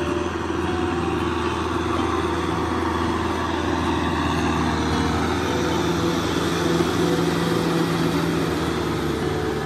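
Kubota M6040SU tractor's diesel engine running steadily under load as it pulls a rotary tiller through a flooded rice paddy, getting a little louder as the tractor comes near.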